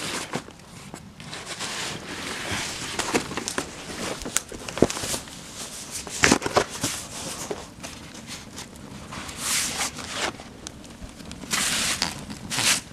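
Cardboard and paper fire burning in a metal drum, crackling and popping irregularly with a hiss of flame underneath. A couple of louder rushes of noise, each about a second long, come near the end.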